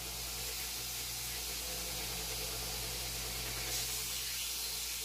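Electric belt grinder running with a steel bar pressed against its abrasive belt, throwing sparks: a steady rushing grind over a low, even motor hum.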